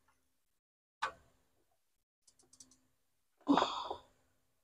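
A single sharp tap about a second in, then a few faint quick clicks of a socket ratchet snugging the crank sensor's 10 mm bolt, and a short sigh near the end.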